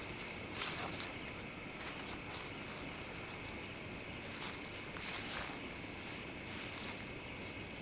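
Footsteps crunching through dry leaves on a woodland floor, a few slow irregular steps, over a steady high-pitched chorus of night insects trilling.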